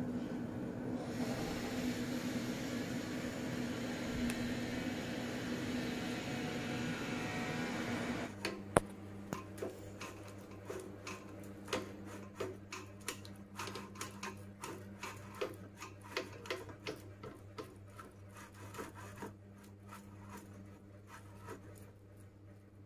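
Silicone spatula stirring and scraping a chocolate frosting mixture in a bowl, a dense steady scraping over a low hum. About eight seconds in it changes to many quick, irregular scrapes and taps as the spatula pushes the mixture through a mesh sieve.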